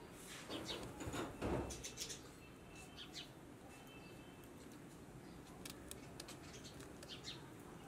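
Faint birds chirping, with soft, sharp clicks of a knife cutting green chillies in the hand.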